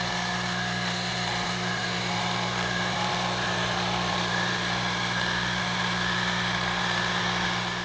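Handheld battery-powered tire inflator running steadily, a constant motor-and-pump hum, as it pumps air through the Schrader valve into a pickup's rear suspension airbag. The pressure is still low and slowly climbing.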